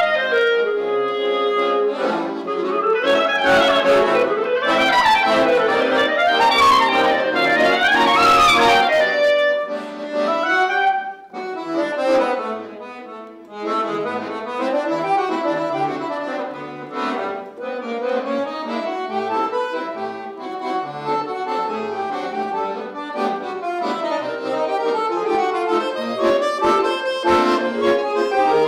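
A clarinet and a piano accordion playing together as a duo. About eleven seconds in the clarinet drops out and the accordion carries on alone. The clarinet comes back in near the end.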